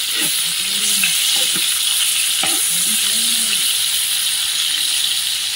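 Turmeric-and-salt-coated fish pieces sizzling steadily as they fry in refined white oil in a black iron frying pan. A few short scrapes and knocks come from a metal spatula turning the pieces.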